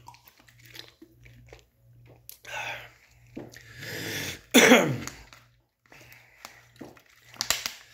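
A man drinking from a plastic water bottle and then coughing and clearing his throat, loudest a little past halfway through: clearing a dry mouth.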